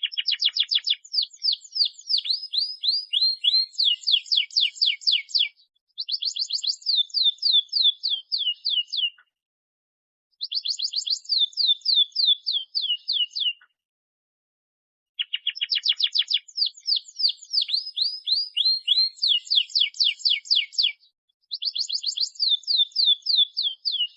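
Domestic canary singing: fast trills of repeated down-sweeping notes, in phrases of three to five seconds with short pauses between them. The same run of phrases starts over about fifteen seconds in, as in a looped recording.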